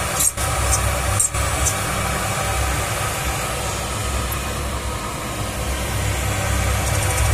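Dental milling machine running steadily with a low hum, dipping briefly twice within the first second and a half.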